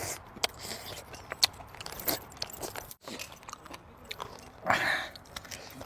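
Close-up eating sounds: a person biting and chewing chicken, with scattered small clicks and a short rush of noise near the end.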